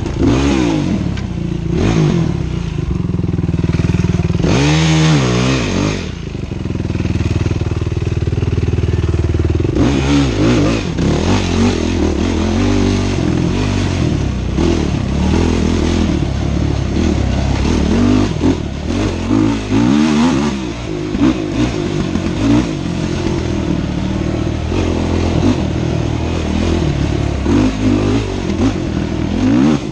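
Dirt bike engine revving up and backing off again and again as it is ridden hard along a bumpy dirt trail, heard close from the rider's helmet. There is a sharp rise and fall in pitch about five seconds in, and short knocks and clatter from the bumps.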